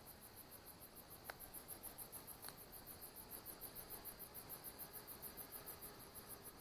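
Crickets chirping faintly in a steady, rapid pulse of several chirps a second, with two faint clicks near the start.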